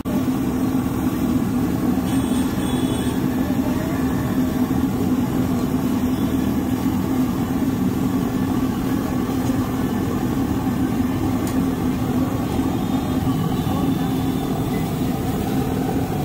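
Steady drone of idling engines and road traffic, holding level throughout.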